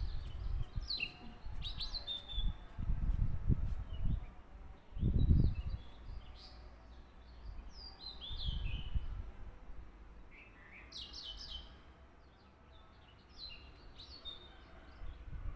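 Birds chirping now and then in short, curving calls. Dull low thumps of hands handling paper come in clusters, the loudest about five seconds in.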